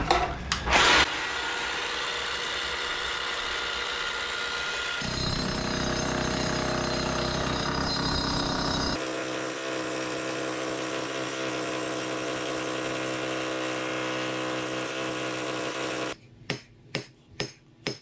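DeWalt rotary hammer drilling holes into the concrete basement floor, running steadily, its tone shifting twice as it bores. Near the end it stops and a hand hammer strikes several quick blows, about two or three a second.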